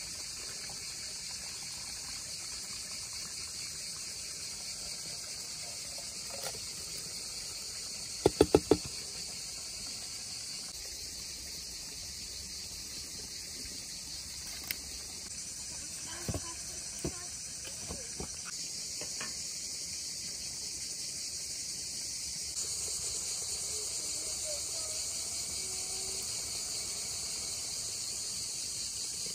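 Steady high-pitched chirping of crickets and other insects. About eight seconds in come four sharp knocks in quick succession, and a few fainter knocks follow later.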